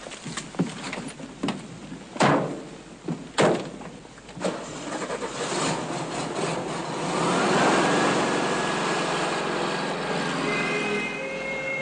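A few sharp knocks, then a motor vehicle's engine starts and runs, swelling to its loudest about eight seconds in.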